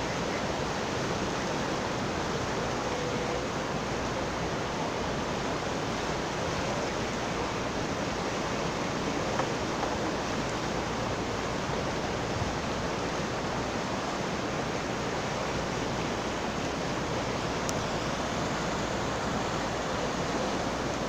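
Steady rush of fast-flowing river water over rapids, an even unbroken noise.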